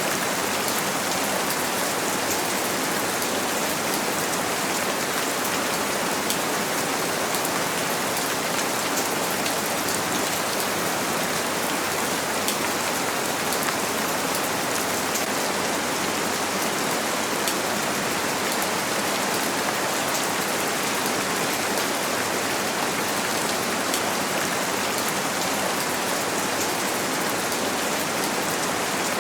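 Steady rain falling on a window, a constant hiss flecked with small sharp drop ticks.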